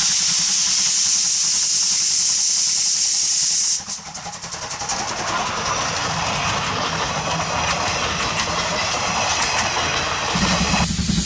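Steady loud hiss of steam venting from the cylinder drain cocks of the C12 66 steam tank locomotive, which cuts off abruptly about 4 s in. Passenger coaches then roll past close by, their wheels rumbling and clicking over the rails, and a deeper drone joins near the end.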